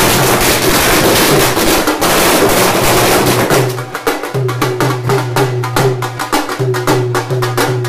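A chain of firecrackers going off in a rapid, dense crackle that thins out to separate bangs after about four seconds, with music playing underneath.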